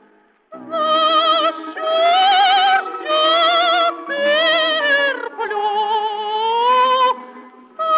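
A woman's voice singing in operatic style, holding long notes with strong vibrato. It comes in about half a second in, after a brief gap, and fades briefly near the end.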